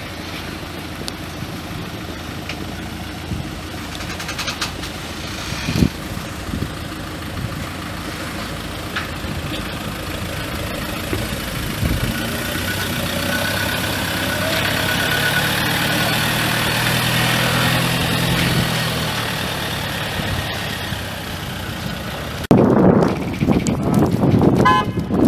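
Ford Ranger pickup's diesel engine running at low revs as the truck crawls over steel ramps, its hum swelling in the middle and easing off again. Near the end a louder, rougher sound cuts in abruptly.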